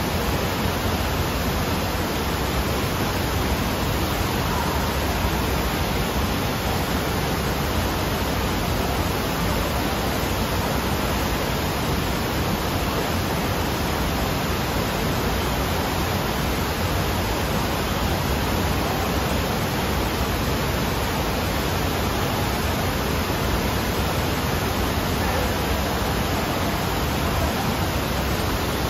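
Steady, loud rush of pumped water pouring over the ride surface of an indoor sheet-wave surf machine, without a break.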